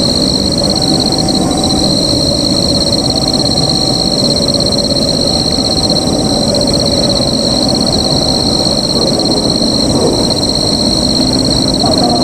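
A two-tone electronic level-crossing alarm alternating high and low, about one tone a second, over a steady high insect drone and a low rumble.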